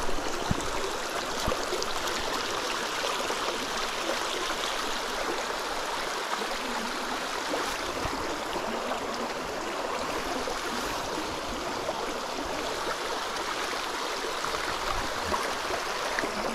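A small, shallow, rocky stream running over stones, heard close up as a steady rush and babble of water.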